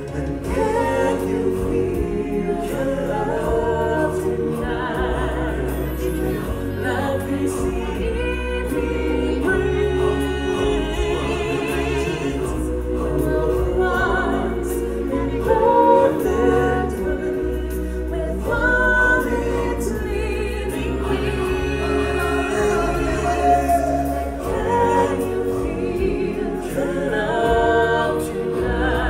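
Stage-show music: a choir sings over a recorded accompaniment with a steady bass.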